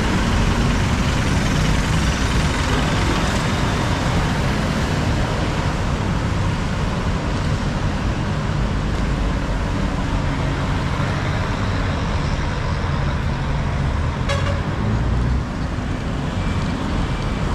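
Steady rumble of heavy road traffic close by: engines and tyres of jeepneys and cars passing on a busy city road.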